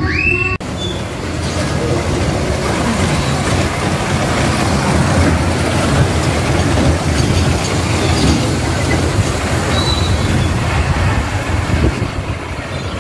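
Children's motorcycle ride running around its circular rail track, its small wheels rolling on the steel rails with a steady rumbling clatter, heard from aboard the moving ride.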